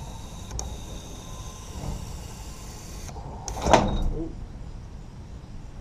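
QuickJack portable lift being lowered under a fuel tank: a steady hiss for about three seconds. Then comes a brief loud sound falling in pitch as the load comes down, the back end dropping quicker than the front.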